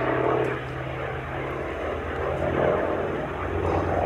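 Hawker Fury ISS's original Bristol Centaurus 18-cylinder sleeve-valve radial engine droning steadily as the fighter flies overhead, with propeller noise, growing slightly louder near the end.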